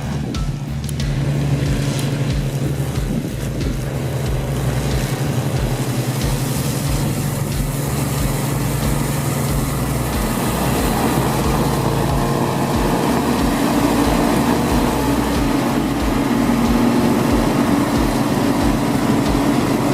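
Large agricultural tractor with hydraulic ditchbank mowing booms, working. Its engine runs steadily under the noise of the mowing heads. The engine note moves higher about halfway through.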